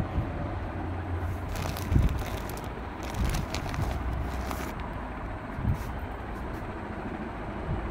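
Handling noise from a handheld phone moving close along plastic-wrapped stacks: a steady low rumble, a spell of crackling from about one and a half to four and a half seconds in, and a couple of dull bumps.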